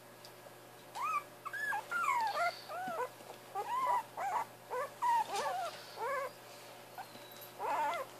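Jack Russell terrier puppies whining and yelping in a quick string of short high-pitched calls, each rising and falling in pitch, starting about a second in, with one last call near the end.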